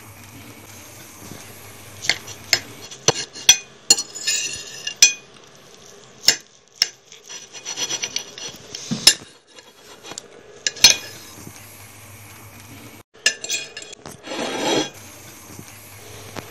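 A table knife and fork on a ceramic plate, sawing through crisp fried toast. Scraping strokes mixed with sharp clinks of metal on the plate, in irregular bursts through most of the stretch.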